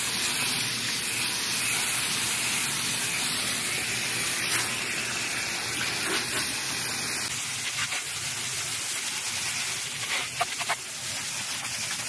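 Garden hose nozzle jetting water down the fins of an outdoor air-conditioner condenser coil: a steady hiss of spray on the metal fins, rinsing grass clippings and dirt out of the clogged coil.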